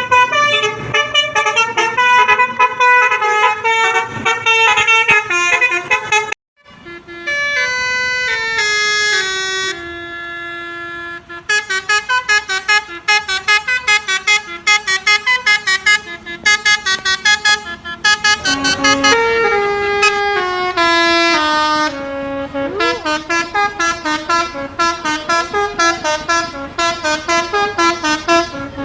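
Indonesian 'basuri' musical bus horn playing tunes in quick horn notes. It cuts out sharply about six seconds in, then a new tune starts with slower held and falling notes before fast staccato notes return.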